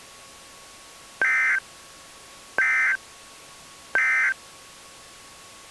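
Emergency Alert System end-of-message (EOM) data bursts: three short, identical buzzy two-tone digital bursts about a second and a half apart, each lasting about a third of a second, marking the end of the alert. A faint steady tone lies underneath.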